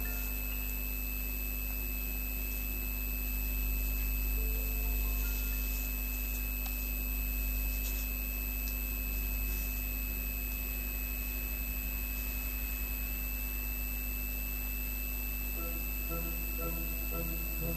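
Steady electronic whine of several fixed high tones over a low hum. Faint pitched notes come in near the end.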